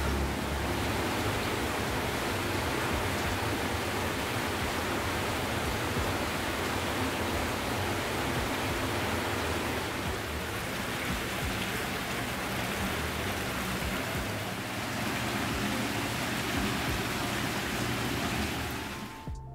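Steady rush of running water: hot spring water flowing into a stone onsen bath. It stops abruptly just before the end.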